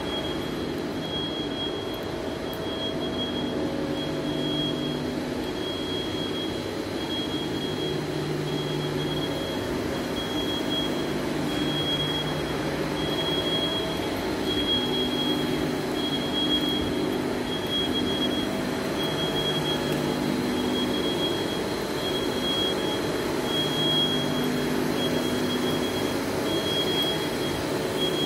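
Steady machinery hum with low tones that swell and fade in stretches of a second or two, and a high tone pulsing on and off at an even pace.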